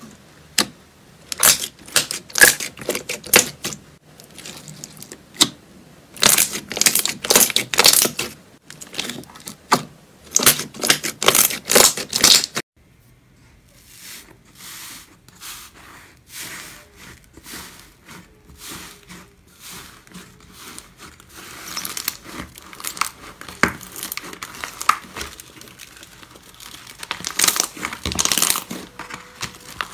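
Hands pressing, folding and kneading slime, giving clusters of sharp crackles and pops. After about 12 seconds the sound drops suddenly to softer, sparser crackling as fingers press a different slime, then thickens again near the end as two hands knead a fluffy slime.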